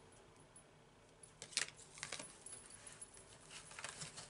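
Faint rustling and light clicks of small cosmetic sample packets being handled. They start about a second and a half in, after a near-quiet start.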